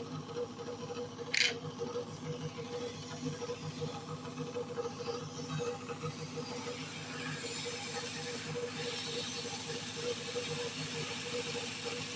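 Car engine idling with a steady, pulsing drone and a hiss that grows stronger in the second half; a short sharp tick sounds about a second and a half in.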